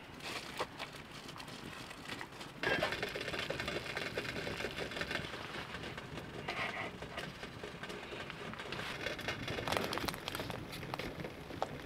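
Pot of water boiling on a wood stove, a steady bubbling hiss that starts abruptly about two and a half seconds in, with light clicks and taps of raw gnocchi being handled and dropped in.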